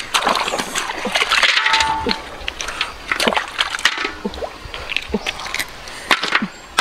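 Shallow river water splashing and sloshing as snails are scooped out by hand, with many short clicks of snail shells knocking together as they are tossed onto a pile on the bank.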